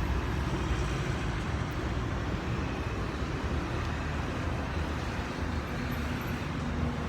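Steady low rumble of vehicle and road noise, with no distinct events.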